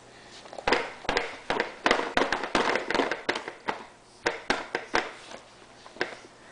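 A baby's hands slapping the plastic tray of a Fisher-Price Space Saver high chair: an irregular run of about twenty sharp slaps, starting about a second in, thick and quick through the middle, then thinning out.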